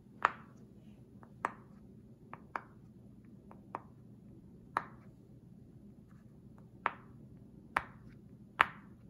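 Silicone pop-it fidget toy bubbles being pressed one at a time, each giving a sharp little pop, about ten pops at uneven intervals with pauses of up to two seconds between them.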